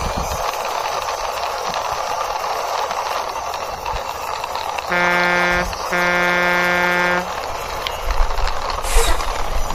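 Toy fire truck pushed along by hand, its electronic horn honking twice about five seconds in, a short toot then a longer one, over a steady rolling rumble. A few knocks come near the end.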